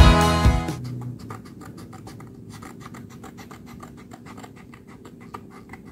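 Small scissors snipping through printed paper, a quick run of short crisp cuts, after background music stops within the first second.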